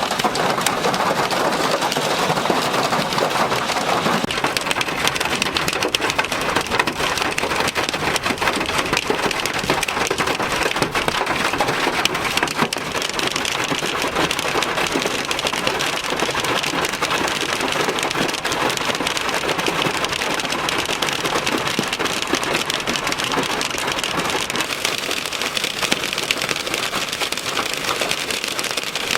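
Hail and heavy rain pelting down in a dense, steady patter of countless small hits, from a severe hailstorm with strong winds.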